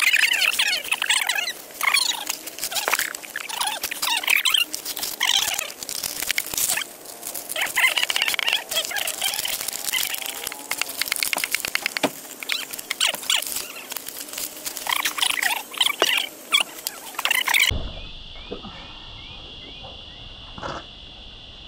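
Crinkling and rustling of foil and plastic chocolate wrappers and cardboard boxes being handled and set down on the ground, many small crackles. About eighteen seconds in it cuts off abruptly to a quieter steady high-pitched hum.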